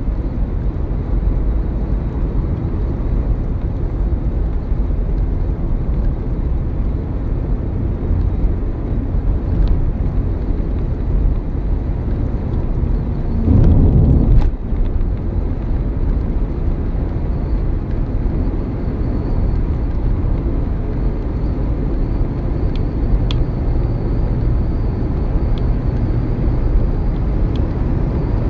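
Steady low road and engine noise inside a moving car's cabin, with a brief louder rumble about halfway through that ends in a sharp click.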